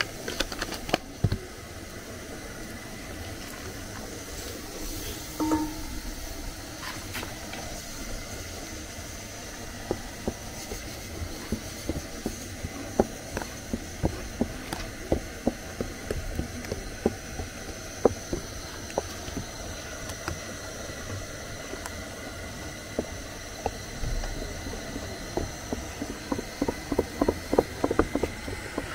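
Wooden spatula stirring thick egusi paste in a glass bowl, knocking and tapping against the glass again and again, the knocks coming quick and close together near the end, over a steady hiss.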